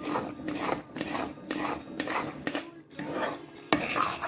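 Perforated steel spatula stirring and scraping thick apple halwa around a pan, with rasping strokes about twice a second as the ghee is worked in. There is one sharper knock of the spatula against the pan near the end.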